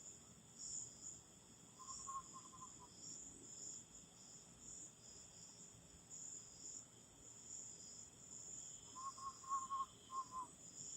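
Steady chorus of crickets and other night insects, with two short quavering trills in the manner of an eastern screech owl's call: a faint one about two seconds in and a louder one near the end.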